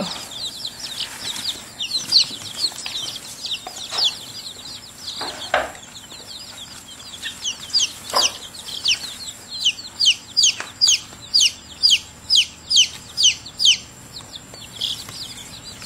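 A box of baby chicks peeping: a run of short, high, downward-sliding peeps that comes faster in the second half, about two a second. A couple of soft knocks sound among them.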